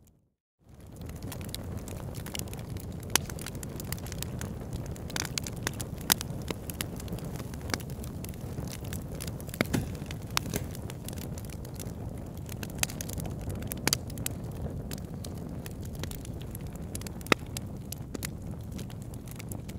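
Wood fire burning in a fireplace: a steady low noise with scattered sharp crackles and pops. The sound drops out for a moment at the very start and fades back in.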